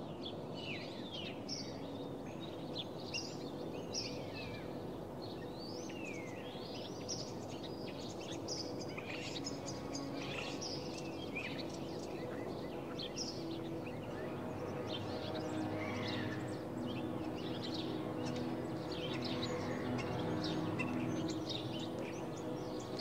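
Many small birds calling and singing together, a busy chorus of short chirps and whistles, over a steady low background noise. Faint sustained low tones come in about halfway through.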